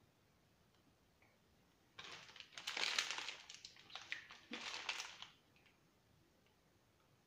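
Disposable plastic piping bag crinkling and crackling as it is squeezed and crumpled in the hands, for about three seconds starting about two seconds in, in two bursts.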